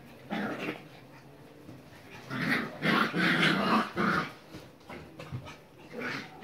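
Dogs growling in play in short bursts, loudest from about two and a half to four seconds in, with a few whimpering notes.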